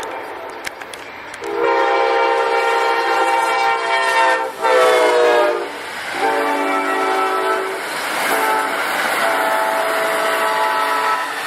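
Amtrak passenger train passing at speed, its locomotive horn sounding about four blasts for a grade crossing, the first one long, with the pitch dropping as the locomotive goes by. The rumble and clatter of the passenger cars on the rails continues under and after the horn.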